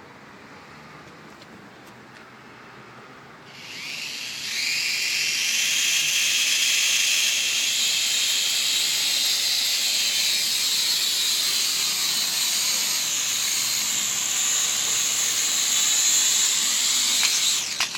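Small toy quadcopter drone's motors and propellers spinning up about three and a half seconds in with a rising high-pitched whine, then running steady as it lifts off and hovers, and cutting off just before the end.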